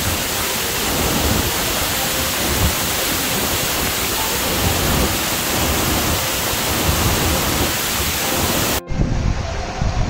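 Gljúfrabúi waterfall, a 40 m fall into a pool inside a narrow ravine, heard close up as a loud, steady rush of falling water over an uneven low rumble. About nine seconds in the sound drops out for an instant and switches to a duller recording of the falls and the stream.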